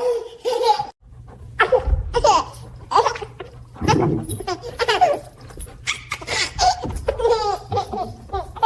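A baby laughing in a long run of short bursts, one after another with brief gaps.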